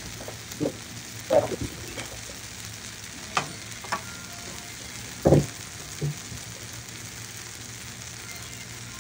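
Quesadillas frying in a little vegetable oil on an electric griddle at 400 degrees, giving a steady, quiet sizzle. A few brief knocks are scattered through it.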